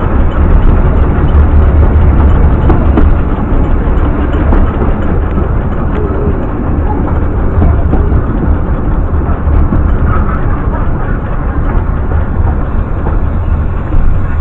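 Narrow-gauge Welsh Highland Railway train running along the track: a steady, loud rumble with scattered faint clicks.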